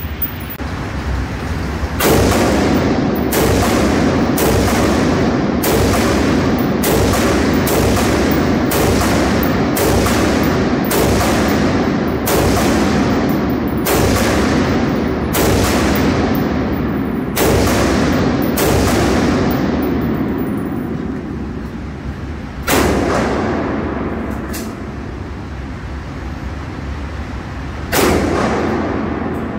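AR-15 rifle firing single shots at a steady pace, about one a second for some seventeen seconds, each shot echoing in the indoor range. After pauses come two more single shots, the last near the end.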